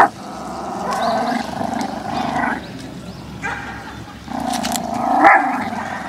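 A dog growling in two long rough stretches, about a second and a half each, the second ending in a louder snarl.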